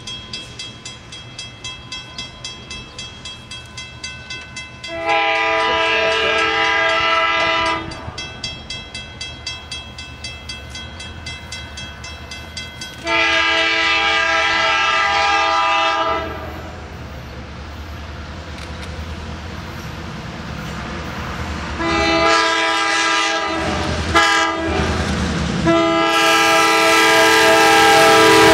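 EMD F7 locomotive's five-chime Leslie K5LA air horn sounding a grade-crossing signal: two long blasts, two shorter ones, then a long blast held as the train arrives, over the rising rumble of the approaching locomotive. Before the horn, and between its first two blasts, a crossing bell rings steadily, about two to three strokes a second.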